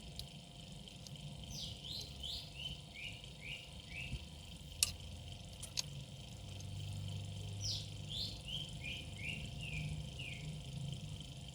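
A bird singing twice, each phrase a run of short down-slurred notes stepping lower in pitch, over a steady high-pitched insect-like whine and a low hum. Two sharp clicks come between the phrases.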